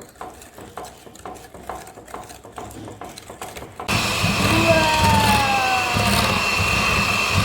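A utensil clicks against a mixing bowl as cookie batter is stirred by hand, about three strokes a second. A little under four seconds in, a loud steady whirring noise with a high whine starts up and drowns out the stirring.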